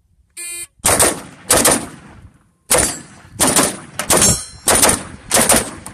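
A shot-timer start beep, then a string of about eight AR-15-style rifle shots fired at a quick, uneven pace.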